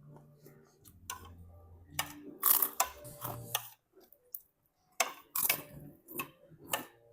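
Irregular clicks and knocks of small hard objects being handled, loudest about two and a half seconds in and again near five seconds, with short ringing tones in between.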